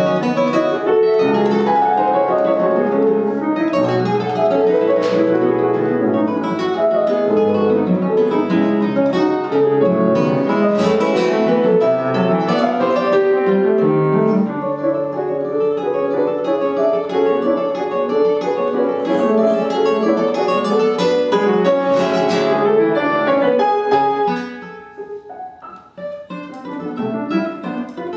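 Classical guitar and piano playing together in a Renaissance-style dance suite, quick plucked guitar notes over piano. About 24 seconds in, the music drops to a quieter, sparser passage.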